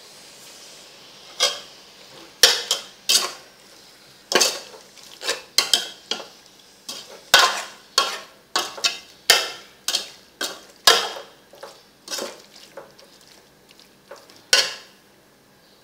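Metal ladle stirring a thick beef and spice-paste mixture in a metal pot, clanking and scraping against the pot's sides and bottom. The clanks come irregularly, roughly two a second, starting about a second and a half in and stopping near the end.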